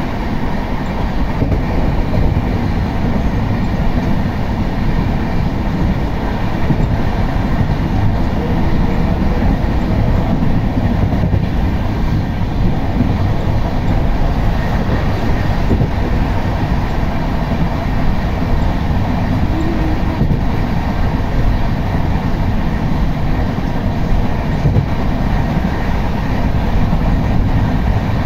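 A moving train, heard from inside a carriage: a steady, loud low rumble of the running carriage on the track.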